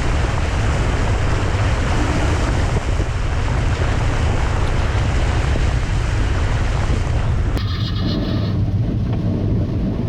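Audi A2 1.4 TDI driving through deep floodwater: water rushing and spraying against the underside and wheel arches over a steady low engine and road rumble. The spray cuts off suddenly about three quarters of the way through, leaving the rumble.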